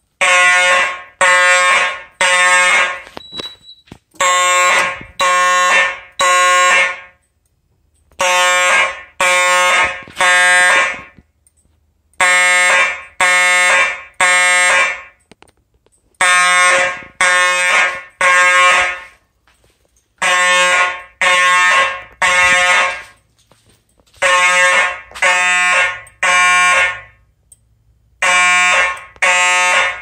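Simplex 4903-9219 fire alarm horn strobe sounding a code 3 (temporal-three) evacuation signal: three short, loud horn blasts about a second apart, then a pause, with the pattern repeating about every four seconds.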